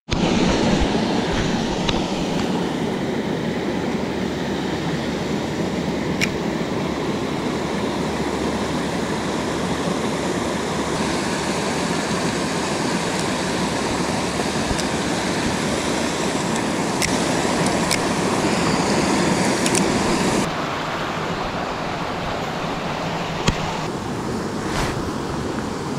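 Rushing water of a small mountain stream, a steady even rush that drops slightly in level about two-thirds through, with a few faint sharp clicks.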